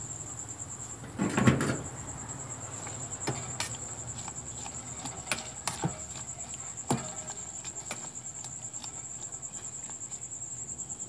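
A metal utensil knocks and scrapes against a small metal pot while water spinach is pushed down into boiling water to blanch: a louder clatter about a second and a half in, then scattered single knocks. A cricket trills steadily in the background.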